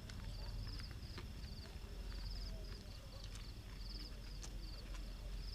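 Short high trilled chirps, about two a second, from a calling animal, over a steady low rumble, with scattered sharp clicks.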